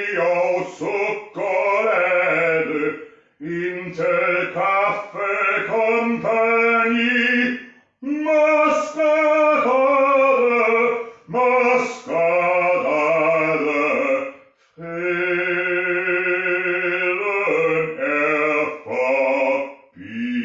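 A man singing unaccompanied in an operatic style, in long phrases with sustained held notes and brief breaks between them.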